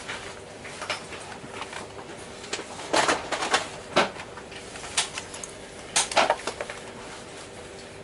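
Inside a regional train carriage rolling slowly into a station: a steady hum, with a run of sharp clanks and rattles from about three to six and a half seconds in.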